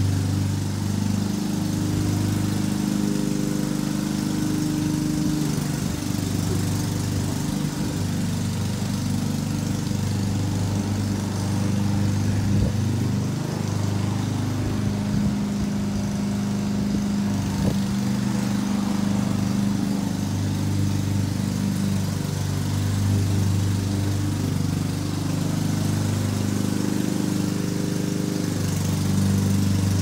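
Lawn mower engine running steadily, its low hum weakening and strengthening every few seconds.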